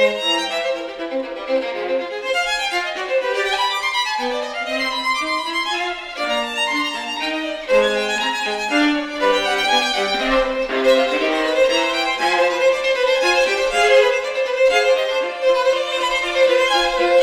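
A violin and viola duo playing: the violin holds long notes above while the viola moves in a stepping line beneath.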